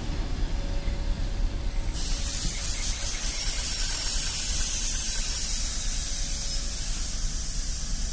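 Passenger train coaches rolling past on arrival at the platform, with a low rumble. A loud high hiss sets in about two seconds in and drops away about five and a half seconds in.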